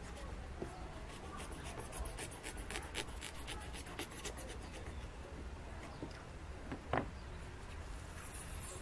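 Craft knife cutting into a foam wing: a run of short scratchy clicks and creaks as the blade works through the foam, with one sharper click about seven seconds in.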